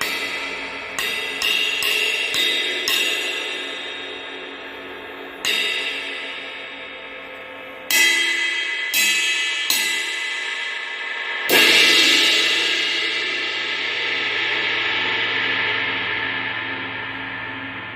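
24-inch Omete Lunar Ride cymbal struck with a stick about eleven times, each hit ringing on: a quick run of strikes in the first three seconds, then sparser hits. The hardest strike, about eleven and a half seconds in, is the loudest and is left to ring out with a long, slowly fading wash.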